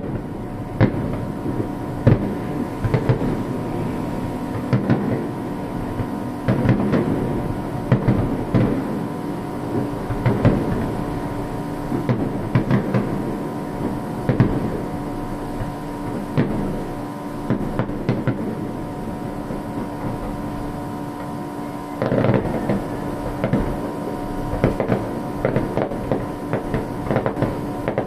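Fireworks bursting in a continuous barrage, many bangs in quick succession with a steady hum underneath; the bangs grow denser about 22 seconds in.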